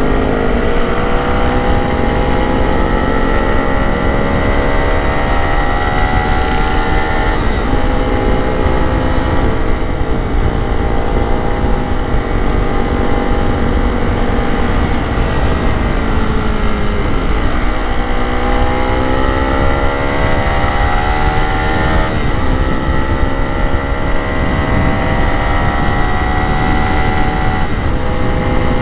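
Honda Sonic 150R's single-cylinder four-stroke engine under way, its note climbing slowly and dropping back several times as the rider shifts gear or eases the throttle, with one deeper slow-down and pick-up around the middle. Steady wind rumble on the microphone underneath.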